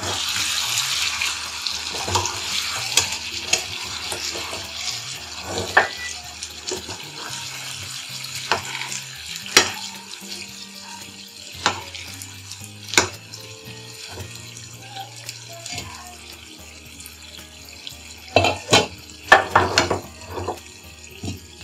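Brinjal curry sizzling and bubbling in a non-stick frying pan, the hiss strongest at first and fading, while a steel spoon stirs it with scattered clicks and scrapes against the pan. A quick cluster of clanks comes near the end.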